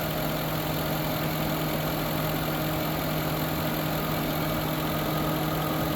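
Vehicle engine idling steadily with an even hum, while a high-output alternator charges at about 15 volts.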